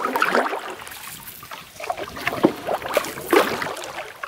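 Canoe paddle strokes on a lake: the blade dips and pulls through the water with splashing and dripping, in several surges spaced a second or so apart.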